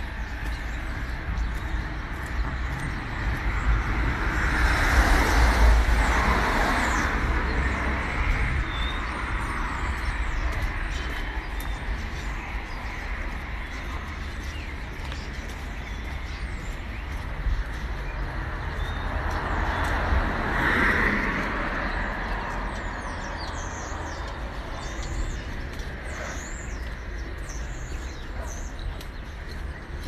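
Cars passing along a residential street, one swelling up and fading about five seconds in and another about twenty seconds in, over a constant low rumble. Small birds chirp faintly in the second half.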